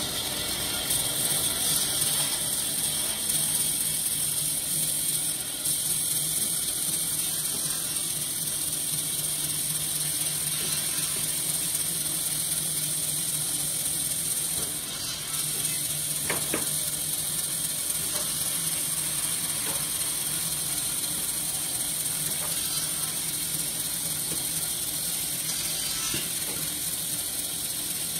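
Bandsaw ripping a thick block of wood: a steady hiss of the blade cutting through the grain over a low hum from the machine.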